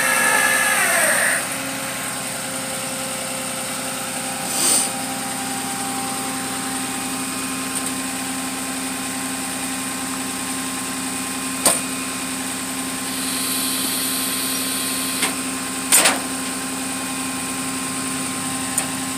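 Flatbed tow truck's engine idling steadily. A winch whine falls in pitch and stops about a second in. A few sharp knocks follow over the idle.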